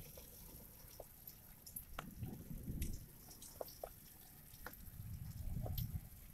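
Rain falling, heard faintly as scattered drips and taps over a low rush that swells and fades twice.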